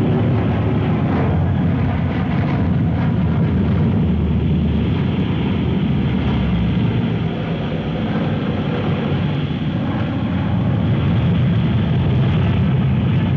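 Steady low drone of a formation of aircraft engines passing overhead, a dense continuous rumble.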